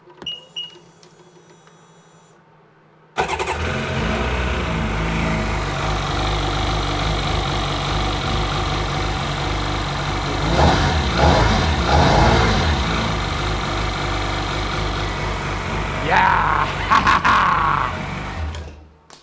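Two short beeps, then the freshly rebuilt Sea-Doo 951 DI two-stroke twin fires about three seconds in on its first cold start and runs. It is revved up and back down twice, then shut off near the end.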